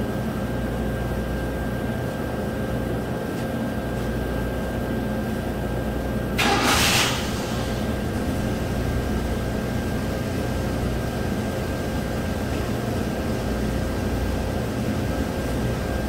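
A 1997 Chevrolet pickup's Vortec 5.7 L V8 starts with a short burst of noise about six seconds in, then idles. It is running in open loop, commanded by the scan tool, while its front oxygen sensors read rich.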